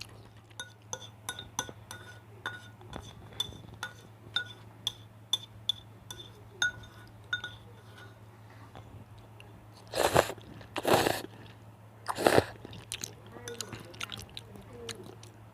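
Close-miked eating of spicy cheese noodles: for the first eight seconds a run of small sharp clicks with a brief ring, about one or two a second, over soft chewing. Then three loud bursts of eating noise come about ten, eleven and twelve seconds in.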